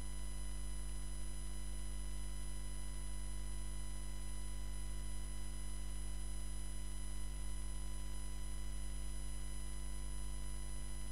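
Steady low electrical mains hum with a set of faint, unchanging higher tones over it. There are no audible handling sounds.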